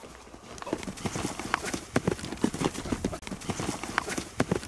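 Quick, irregular footsteps crunching over dry desert ground and brush, several sharp crunches a second.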